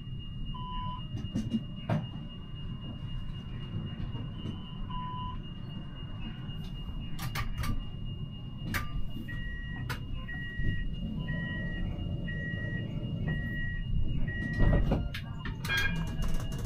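Inside the cab of a Siemens Avenio tram: a steady low rumble and a thin high whine, with a few single beeps, then a run of seven short beeps about one a second, typical of a door-closing warning, ending in a loud knock as the doors shut.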